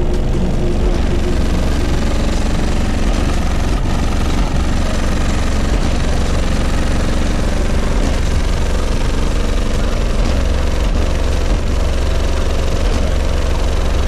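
Deep, loud bass played through a car audio system of twelve subwoofers, the low notes carrying far more than the rest of the music, with a noisy buzz above them.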